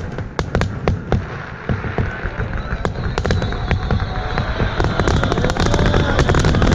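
Finale of a fireworks display: shells bursting and crackling in quick succession, growing denser and louder toward the end into an almost continuous barrage.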